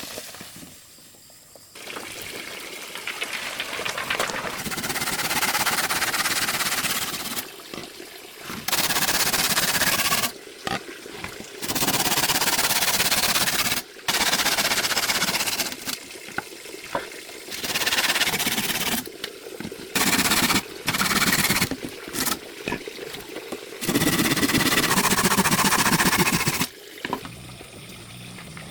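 Water sounds in a series of short clips that start and stop abruptly.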